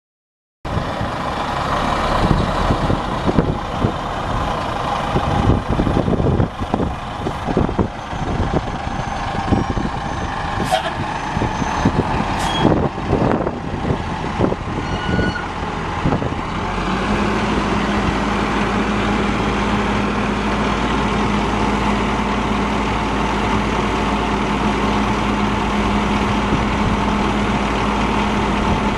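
The dump truck's Caterpillar L10 six-cylinder diesel engine running, with irregular knocks and clatter over it for the first half, then settling to a steady idle with an even hum from about sixteen seconds in.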